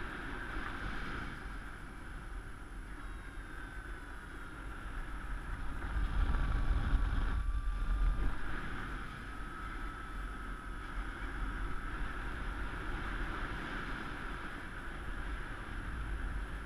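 Airflow rushing over the helmet-mounted camera's microphone in paraglider flight, gustier and louder for a couple of seconds around the middle. A faint thin whistling tone slides down and back up in pitch through the middle.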